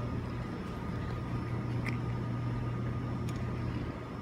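Steady low hum of a Taiwan Railways TEMU2000 Puyuma electric multiple unit standing at the platform, its onboard equipment running. The hum drops away near the end.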